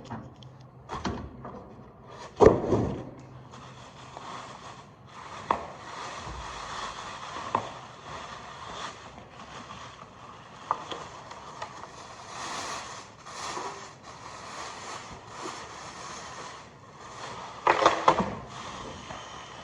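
Parts of a new bandsaw being unpacked and handled: a loud knock about two seconds in, rustling and scraping with scattered clicks through the middle, and a cluster of knocks near the end.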